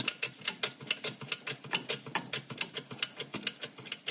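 Transmission jack being worked to raise a transmission: a quick, regular run of sharp mechanical clicks, about five a second, dying away near the end.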